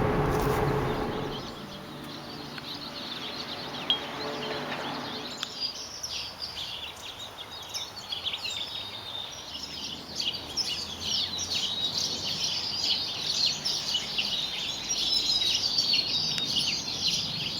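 Many small birds chirping and twittering together, growing denser from about five seconds in. A vehicle fades away over the first couple of seconds, and there is one sharp click near four seconds.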